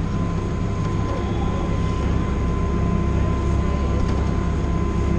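Montenvers rack railway train running, a steady low rumble with a constant thin whine.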